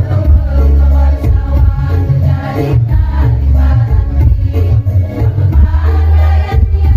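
Women's choir singing through a PA, accompanied by an electronic keyboard whose sustained bass notes are the loudest part of the sound.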